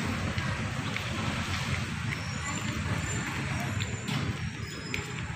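Street ambience: a steady low rumble of motor vehicle traffic and engines, with a few faint clicks.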